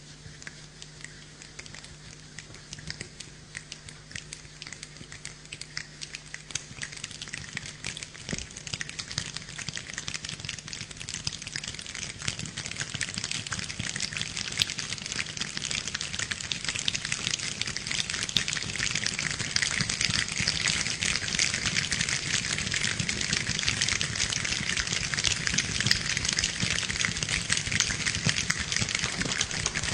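Hands imitating rainfall: scattered small taps and clicks that build into a dense, rain-like patter, growing steadily louder.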